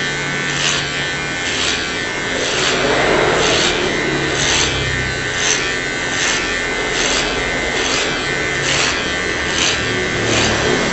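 Cordless hair clipper with a size 3 guard buzzing steadily as it cuts down the hair on top of the head, with a regular rasping pulse about every two-thirds of a second as it passes through the hair.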